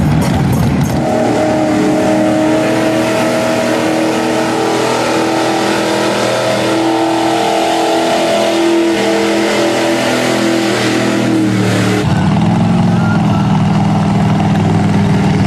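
Lifted mud trucks' engines running hard at high revs as they drive through deep mud, held steady for most of the stretch. About twelve seconds in it gives way to a lower engine note that rises and falls.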